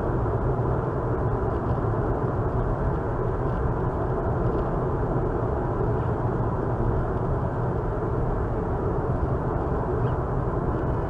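Steady road and tyre noise heard from inside a car cruising on a highway at about 55 mph, a constant low rumble and hiss.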